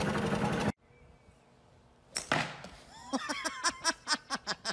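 A loud rushing noise that cuts off abruptly, then quiet, then a single sharp swish-like strike about two seconds in, followed by a quick run of short pulsing bursts, several a second.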